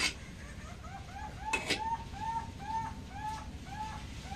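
A small animal calling in a fast, even run of short chirps, about three a second, starting about a second in. A sharp click sounds at the very start and another about a second and a half in.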